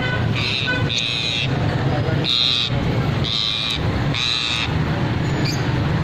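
Lovebirds giving about five shrill calls, each roughly half a second long, over a steady low hum of market crowd and traffic.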